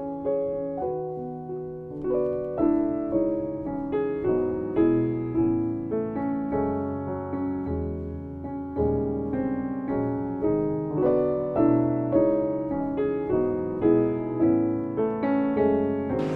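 Background piano music, single notes and chords struck and dying away at an even pace.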